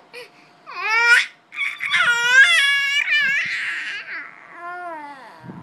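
A five-and-a-half-month-old baby babbling: a rising high-pitched call about a second in, then a longer run of wavering, sing-song vocal sounds that turns breathy, and lower coos near the end.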